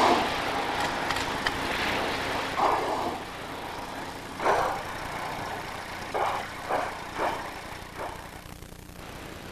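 Killer whales blowing at the surface: short, breathy puffs of exhalation. One comes at the start, two more follow a couple of seconds apart, then four come in quick succession near the end, over a steady background rumble.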